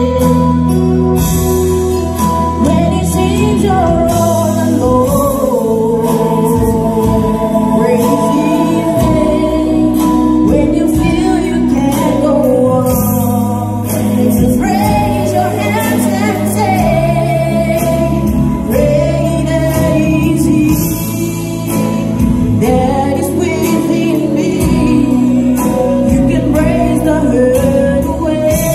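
A woman singing a gospel song through a microphone and PA, backed by a live band with keyboard and drums.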